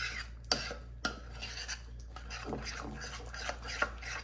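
Spoon scraping and clinking against a bowl while spices are stirred into yogurt to make a marinade paste, with a few sharp clicks among the scraping.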